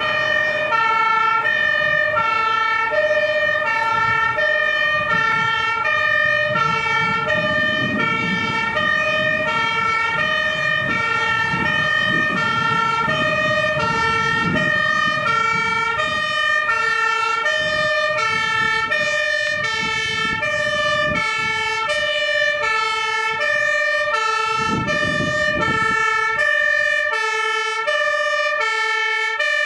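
Fire engine's two-tone siren sounding continuously, switching between a high and a low note about every two-thirds of a second as the truck approaches. A low engine rumble rises and falls beneath it, loudest about 25 seconds in.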